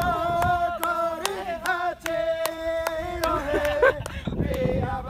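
A group of young men singing a team chant in unison with long held notes, over rhythmic hand clapping. The singing wavers and breaks off about four seconds in, and a new held note starts near the end.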